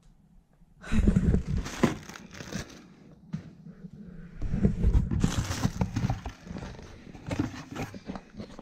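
Packaging crinkling and tearing in irregular spells as a delivered package is opened by hand, with scattered sharp crackles.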